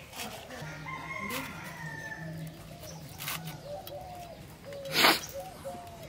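Chickens clucking in short repeated calls, with a short, loud noise about five seconds in.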